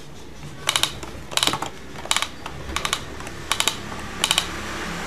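Plastic clicking from a Minnie Mouse Bow-tique toy electronic cash register, in quick clusters of three or four clicks that come about every 0.7 seconds.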